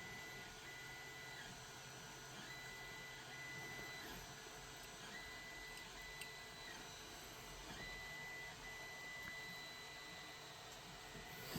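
Faint high-pitched electronic whine that cuts out and comes back every second or so, over a low steady hum.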